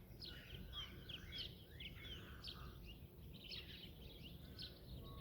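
Faint morning birdsong from several garden birds: a busy run of quick chirps and short whistled notes, over a low, steady rumble.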